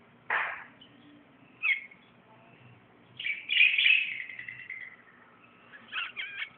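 Eye-ring lovebirds calling: shrill chirps, one just after the start and another a little later, then a longer stretch of chattering in the middle and a quick run of short calls near the end.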